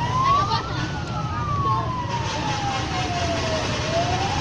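Police escort siren wailing: one slow tone rising for about a second, then falling for nearly three seconds and starting to rise again near the end. A steady low vehicle rumble runs underneath.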